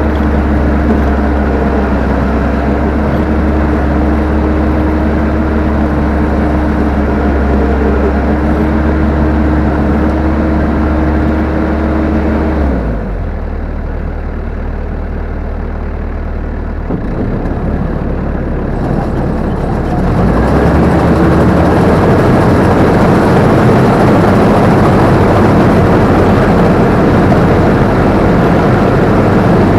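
Combine harvester engine and machinery running steadily at close range. About 13 seconds in the steady whine stops and the sound drops quieter, then around 20 seconds it comes back louder and fuller.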